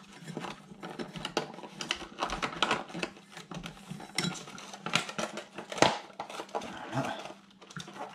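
Light plastic clicks and clatter of a 1/10 RC buggy being handled, its body shell pressed onto the chassis, with one sharper click a little before 6 seconds in.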